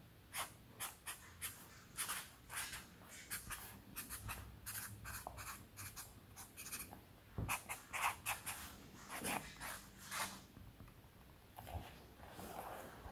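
Felt-tip Sharpie marker writing on a sticky-note pad: a run of short scratching strokes with brief gaps between words, going quiet shortly before the end.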